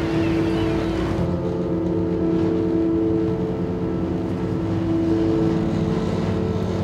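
Fishing boat's engine and deck machinery running with a steady drone and humming tones. For about the first second water rushes along the hull with a hiss; after that the sound is duller, as heard inside the wheelhouse.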